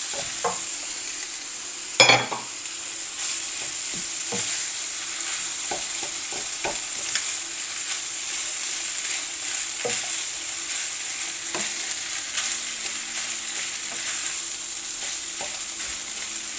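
Fried rice with lamb sizzling steadily in a nonstick frying pan while a silicone spatula stirs and breaks up the rice. Soft scattered knocks of the spatula against the pan, and a louder knock about two seconds in.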